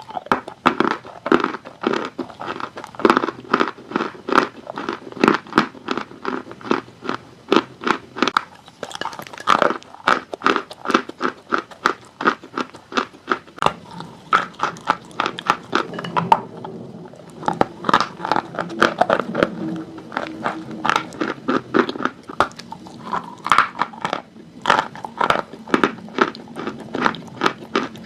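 Dry chalk being bitten and chewed close to the microphone: a rapid run of crisp crunches, several a second, with a softer chewing stretch a little past the middle.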